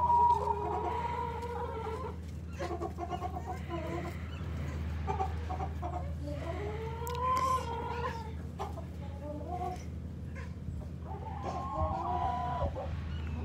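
A flock of hens clucking, with long drawn-out calls at the start, in the middle and near the end, and short clucks in between.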